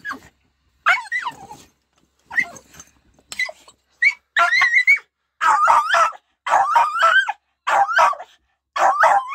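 Dog yipping and whining, eager to go hunting as the gun is brought out. Short separate yelps at first, then from about four seconds in longer wavering whines one after another.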